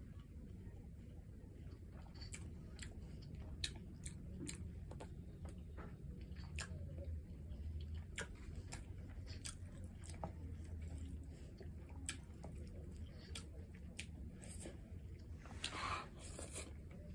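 Close-miked eating with the mouth: chewing of rice and stew with many short, wet mouth clicks and smacks, over a steady low hum. Near the end a louder, longer burst of mouth noise comes as a handful of rice goes in.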